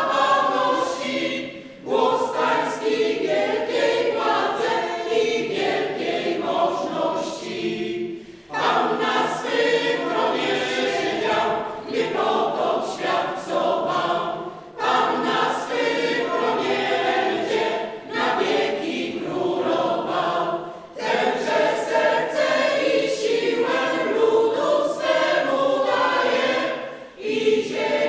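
Mixed choir of women and men singing, in phrases of about six seconds with short breaks between them.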